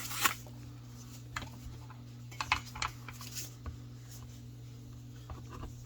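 Folding knife blade slicing cardboard: short, scratchy cutting strokes at irregular intervals, over a steady low hum.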